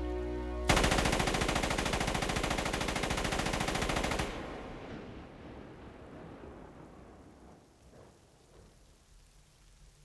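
A Thompson submachine gun firing one long fully automatic burst of rapid shots. It starts suddenly under a second in, runs about three and a half seconds, then stops, leaving a fading wash of rain and reverberation.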